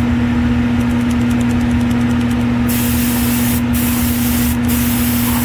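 Airbrush spraying acrylic paint onto a plastic model car body: an air hiss that stops for the first couple of seconds, then resumes in short passes with brief breaks. A steady motor hum runs underneath.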